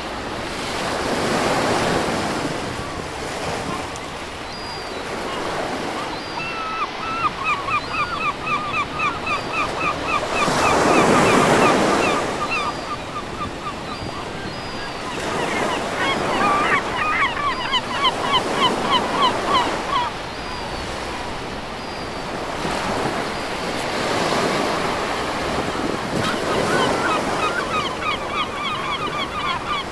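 Ocean surf breaking and washing onto a beach, swelling up every few seconds. Over it, a bird calls in runs of short repeated notes, about five a second, several times.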